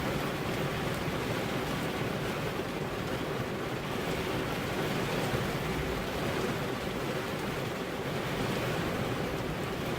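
Steady rain falling on a car's glass windows, an even, dense hiss with no distinct drops standing out.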